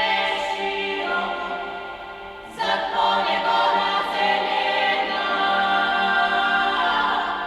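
Dance-mix music: a beatless passage of held, choir-like sung voices that fades down, then swells back in suddenly about two and a half seconds in.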